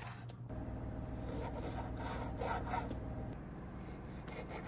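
Chef's knife dicing raw boneless chicken thigh on a wooden cutting board: repeated irregular strokes as the blade cuts through the meat and rubs and scrapes against the wood.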